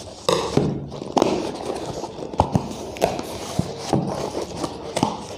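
A cardboard shipping box being opened by hand: scissors slitting the packing tape, then the flaps being pried up. It comes as an irregular run of sharp clicks, scrapes and rustles.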